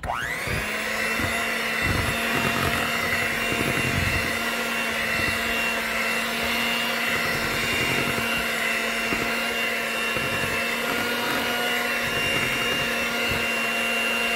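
Electric hand mixer switched on, its motor rising to a steady whine within about half a second and running on with its beaters in thick pumpkin bar batter. Occasional low thuds sound under the whine.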